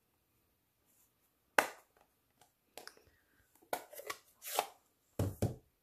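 A rubber stamp on a clear acrylic block being tapped onto an ink pad and pressed down onto cardstock, a series of irregular sharp taps, several close together in the second half.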